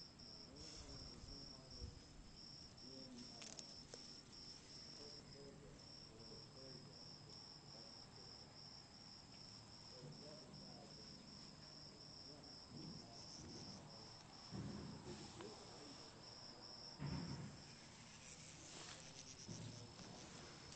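A cricket chirping steadily, a faint high pulse about twice a second. A few rustles and bumps come in near the end.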